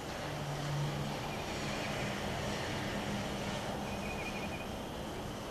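Freight train rolling past: a steady rumble of wheels on rail, with a faint high squeal twice.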